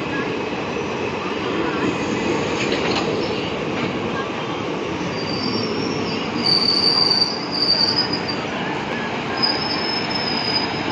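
Passenger coaches of a departing express train rolling past on the platform track, a steady rumble and hiss. From about five seconds in, high-pitched wheel squeals come and go as the last coach passes and the train pulls away.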